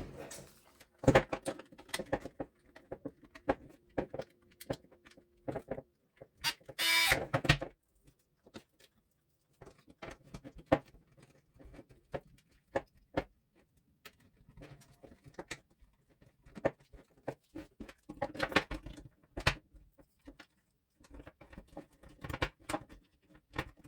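Plastic housing of a Parkside 20V battery charger being handled and put back together: scattered clicks, taps and knocks, with a louder burst of noise lasting about a second around seven seconds in.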